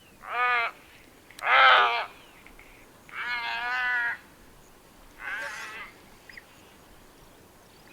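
White-necked heron calling four times, each call under a second except the third, which lasts about a second; the last call is fainter.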